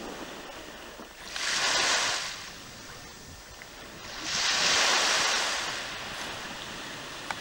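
Sea waves washing in twice, each a hiss that swells and fades over a second or two, over steady sea and wind noise.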